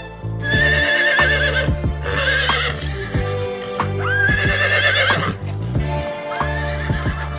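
Horse neighing: three long, quavering whinnies and a shorter, fainter one near the end, over background music with a steady low drone.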